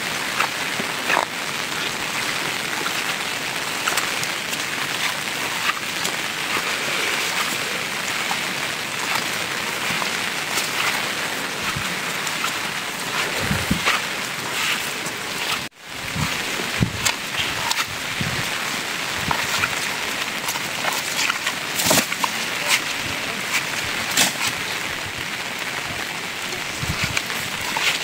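Steady rain falling, with many separate drops hitting close by as sharp ticks. There is a brief break about halfway through.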